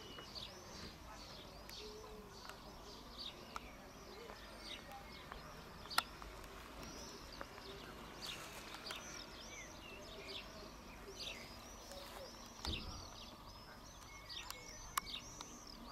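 Small birds chirping over and over, a fast run of short, high, arched chirps over faint steady background noise. Two sharp clicks stand out, one about six seconds in and one near the end.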